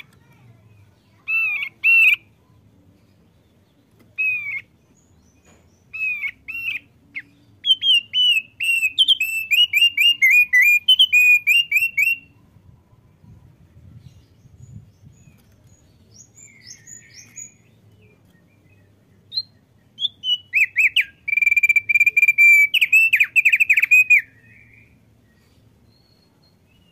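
Male thick-billed heleia (opior paruh tebal) singing: a few short, separate whistled notes, then a fast run of chirping notes for about four seconds. After a pause, a second run of rapid chirps lasts about three and a half seconds near the end.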